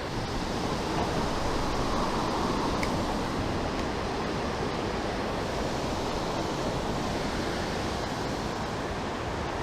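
Steady rushing of water over a creek's falls, an even noise with no breaks.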